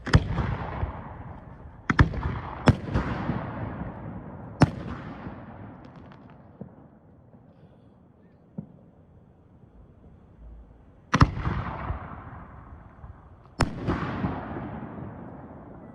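Fireworks bursting overhead: four sharp bangs in the first five seconds, a lull, then two more near the end, each trailed by a fading echo.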